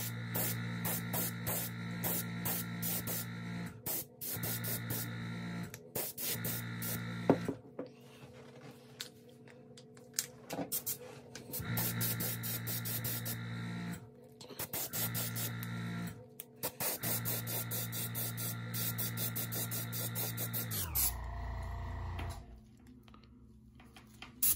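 Small airbrush compressor motor humming steadily in stretches of a few seconds, cutting out between them while the airbrush is worked, then winding down near the end.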